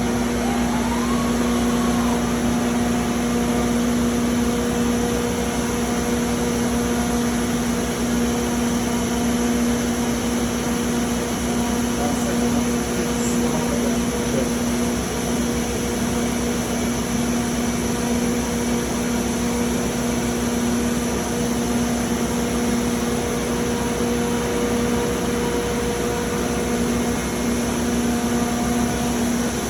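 Hurco VMX 42ui five-axis vertical machining center running with a steady mechanical hum and a constant low drone, with a brief faint rising whine about a second in.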